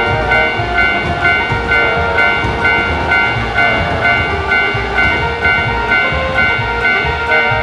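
Japanese railroad crossing warning bell ringing in a fast, even, repeating rhythm, over the low rhythmic rumble of a train running past.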